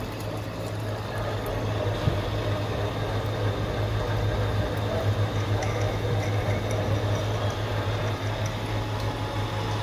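Die-head TMT bar threading machine running steadily with a low hum and a wash of coolant-like noise, with one sharp click about two seconds in.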